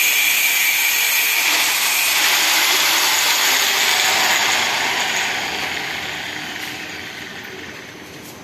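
Angle grinder cutting into the steel gate for the lock cylinder, a loud steady grinding hiss with a high whine, easing off and fading over the last few seconds as it winds down.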